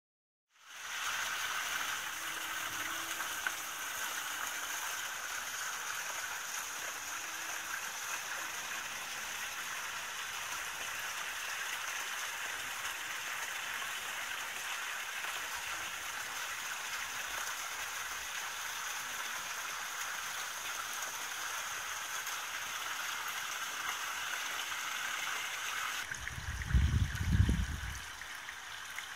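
Garden water cascade: a sheet of water pours from a slot in a stacked-stone wall and splashes steadily into a shallow pebble-lined pool. Shortly before the end the sound shifts to a smaller rock waterfall running into a pond, with a few loud low thumps.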